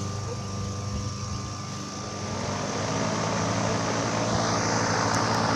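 Carrier Sentry CH14NB heat pump starting up: the compressor hums steadily, and about two seconds in the ECM-driven condenser fan spins up, its rushing air noise building and growing louder.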